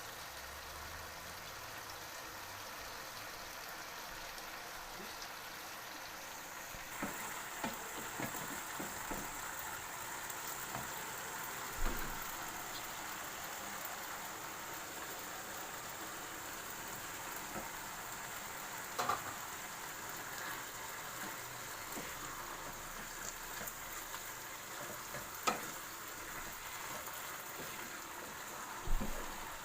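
Food sizzling steadily as it fries in a pan, the sizzle growing brighter about seven seconds in, with a few sharp knocks of a utensil against the pan.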